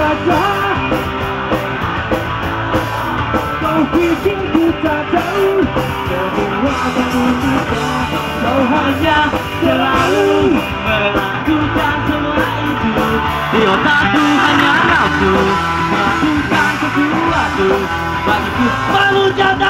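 Pop punk band playing live: electric guitars, bass and drum kit, with singing.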